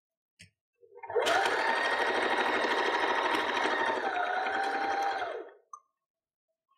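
Electric sewing machine stitching a seam through two layers of cotton. It speeds up quickly about a second in and runs at a steady pace. It eases off slightly near the end and stops about five and a half seconds in.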